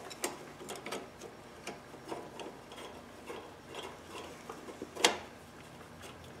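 Small metal clicks and light scraping as M6 threaded rods are worked by hand through a Honda carburetor and choke linkage and started into the engine's threads, with one sharper click about five seconds in.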